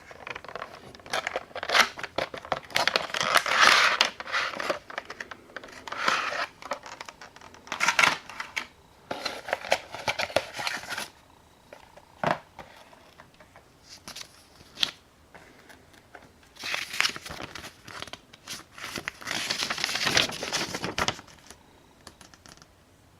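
Packaging being crinkled, cut and torn open in irregular bouts, with short pauses between them.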